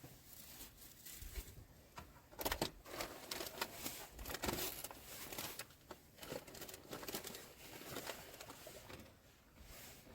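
Irregular rustling and crinkling, as of something being handled, with a few sharp clicks along the way.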